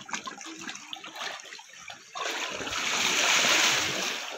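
River water splashing and sloshing around a swimmer in a pool. About two seconds in, a louder rushing splash starts suddenly, swells and fades over about two seconds.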